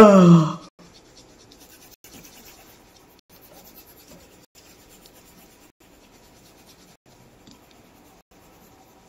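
Colored pencil shading on paper: faint, continuous scratchy strokes. Right at the start, a brief loud vocal sound that falls in pitch.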